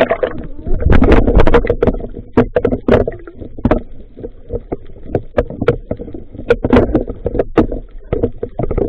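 Underwater sound of a speared fish being gripped and struggling on the spear: irregular knocks and clicks several times a second over muffled water noise and bubbling, loudest about a second in.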